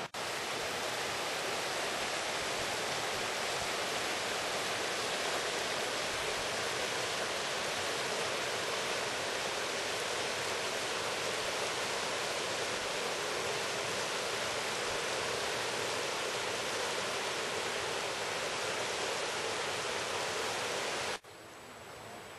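Steady, even rushing noise with no pitch or rhythm, which cuts off abruptly near the end and leaves a much quieter hush.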